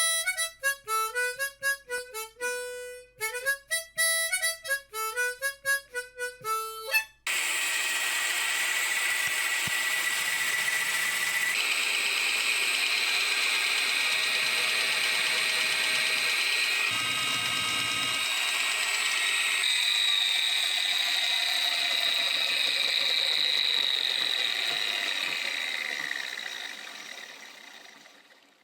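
A short harmonica tune, then, after about seven seconds, a milling machine running with a steady noisy whine from its belt drive. The whine is the sign of a worn bearing, in either the jockey pulley or the spindle head; the owner can't tell which. The sound changes abruptly a few times and fades out near the end.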